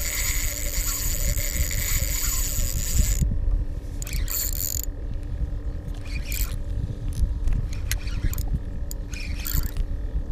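Spinning reel drag buzzing as a hooked fish takes line. It runs for about three seconds, stops suddenly, then comes back in several short spurts. A low rumble of wind and water on the microphone sits underneath.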